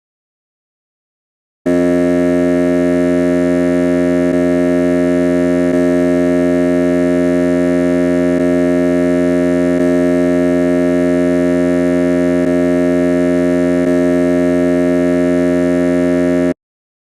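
A ship's alarm horn sounding one long, unbroken blast of about fifteen seconds, a steady low buzzing tone rich in overtones. It starts about two seconds in and cuts off suddenly.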